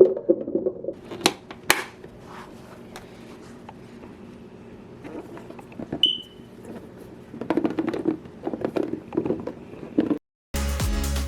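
Close-up household handling sounds: light taps, clicks and knocks of objects being moved about, with two sharp clacks a little over a second in and a short high beep around the middle. Background music with a steady beat starts near the end.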